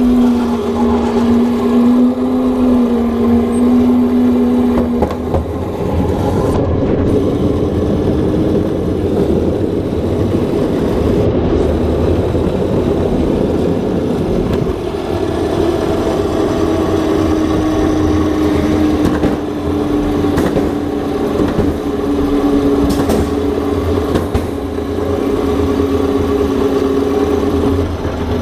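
Go-kart driving, its motor running with a steady humming tone that shifts slowly in pitch as the speed changes, over a constant low rumble of the wheels rolling on the floor.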